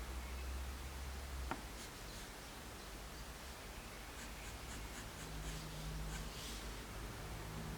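Soft graphite pencil (5B Tombow MONO 100) scratching on paper in short repeated strokes while sketching, over a low steady hum. There is a single click about one and a half seconds in.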